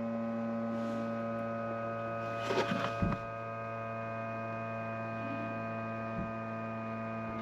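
Class A motorhome's hydraulic levelling-jack pump running with a steady electric hum while the rear jacks are lowered, with a brief knock about three seconds in.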